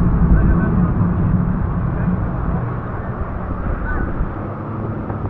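A tour boat's motors run at speed through river rapids, with water rushing past the hull and a steady roar. The low rumble is heaviest at first and eases about a second in.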